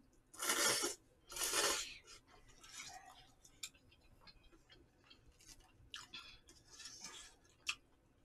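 Noodles being slurped loudly twice, each slurp about half a second long, followed by quieter chewing and small clicks of chopsticks against a takeout bowl.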